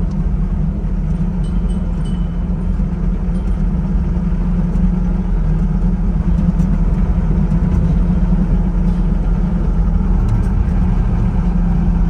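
Farm vehicle's engine running steadily at a constant speed, a low even rumble throughout.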